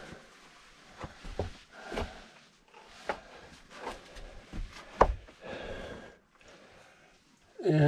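Scattered knocks and scuffs of a person moving about inside a small rock cave: steps and gear brushing the rock, with a sharper knock about five seconds in and a short scrape just after.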